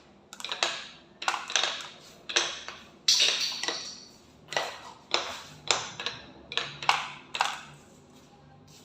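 Glass marbles clicking and clattering as they run down a toy marble run: a dozen or so sharp clicks, about two a second, that stop near the end.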